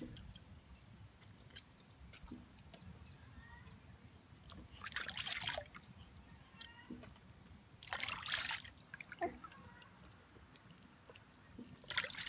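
Hands washing fresh fish in a plastic basin of water: splashing and sloshing in short bursts about five seconds in, about eight seconds in and near the end, with quieter trickling and dripping between. A faint high chirping repeats about three times a second in the background.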